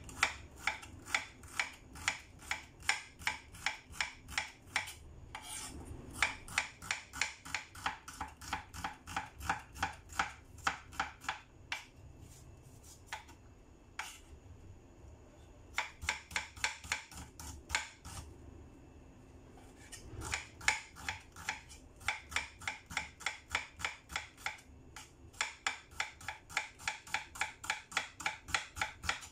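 Kitchen knife slicing shallots thinly on a cutting board: a steady run of knife taps, about three a second, in several bursts broken by short pauses.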